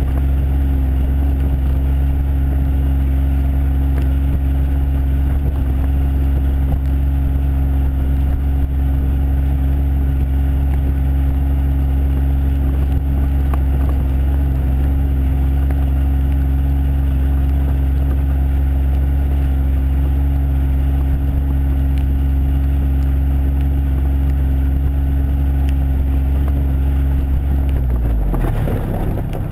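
John Deere Gator 855D's three-cylinder diesel engine running at a steady speed under way, heard from outside the cab; near the end the engine note dips briefly and then comes back up.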